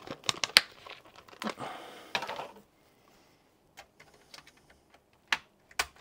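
Small plastic and metal clicks and a brief rustle as SODIMM memory sticks are handled and pressed into their slots, ending with a few sharp separate clicks near the end.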